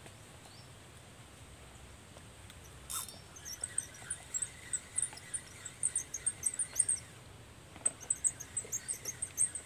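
Spinning fishing reel being cranked: quick, uneven high squeaky clicks that start about three seconds in, with a brief pause before they pick up again.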